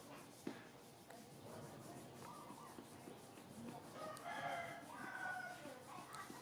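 Faint drawn-out animal calls, the longest lasting over a second about four seconds in, with a sharp tap about half a second in.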